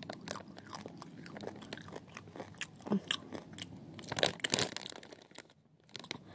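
A person crunching and chewing spicy chips at the mouth, a run of irregular crisp crunches.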